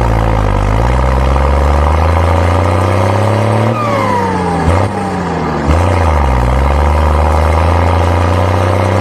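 Small farm tractor engine running under load while pulling a disc harrow, its note slowly falling and rising. There are short breaks about five and six seconds in.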